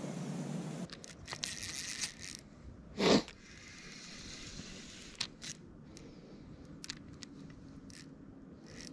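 Close handling noises: scrapes and sharp clicks, with one loud short thump about three seconds in. A steady low rushing noise cuts off abruptly just under a second in.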